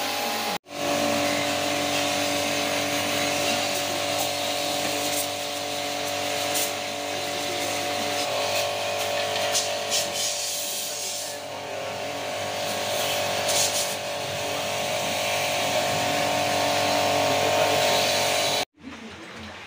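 A motor-driven machine running steadily with a constant hum and a hiss, cut off abruptly near the end.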